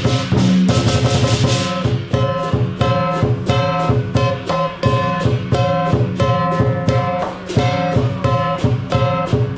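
Music with a fast, steady beat of drum hits and changing pitched notes over it. The first two seconds are brighter and noisier.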